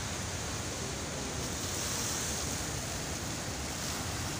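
A steady, even rush of flowing floodwater.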